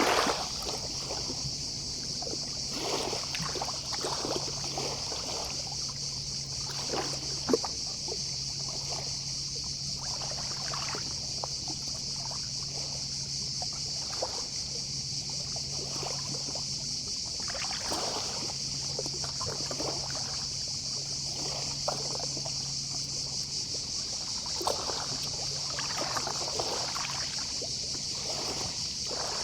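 Small sea waves lapping and splashing at the shore in irregular washes every second or two, over a steady high chorus of distant cicadas, with a faint low hum underneath.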